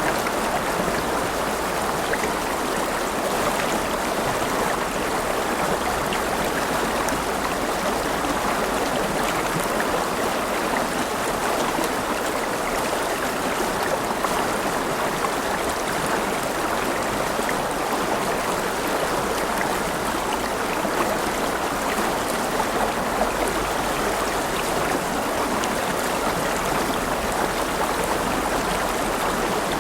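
River water flowing and splashing over rocks, a steady even rushing with no pauses.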